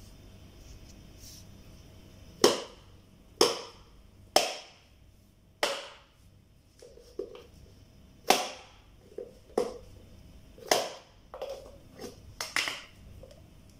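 Large kitchen knife chopping into a coconut's fibrous husk: about ten sharp chops at irregular intervals, several in quick succession near the end.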